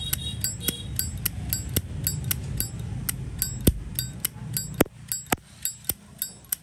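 A 1992 brushed-chrome Zippo lighter's lid being flicked open and snapped shut over and over, a sharp metallic click with a bright ring about twice a second. The strongest strokes come around the middle. The seller calls its sound good, a crisp lid action.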